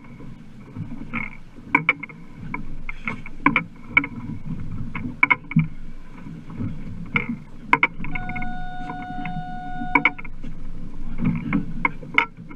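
Low, steady rumble of water and wind around a small boat at sea, with irregular sharp knocks and clacks. Past the middle there is a steady tone that lasts about two seconds.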